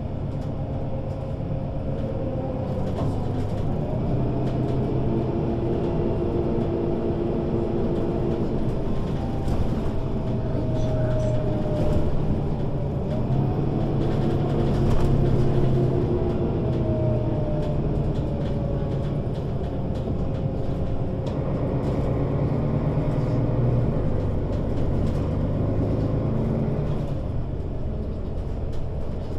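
Mercedes-Benz O 530 Citaro Facelift city bus driving in service, its diesel engine running under load. The engine note climbs and drops several times as the bus accelerates and changes gear.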